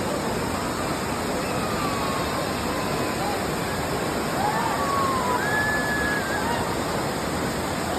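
Waterfall rushing steadily: a loud, unbroken wash of falling water.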